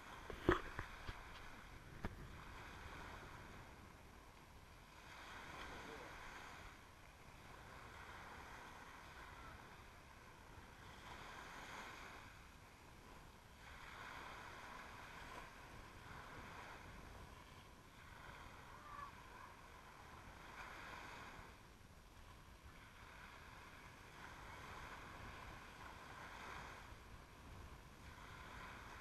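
Small sea waves washing gently up the sand at the waterline, faint, swelling and fading about every three seconds. A couple of sharp knocks in the first two seconds, the loudest sounds here.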